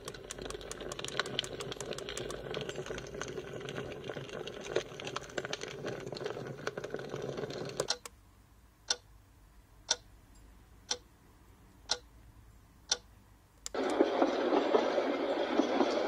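AuCuTee white noise machine playing its built-in sounds through its speaker, changing from one to the next: first a crackly noise full of small clicks, then a clock ticking about once a second, five ticks, then near the end a louder steady rushing noise.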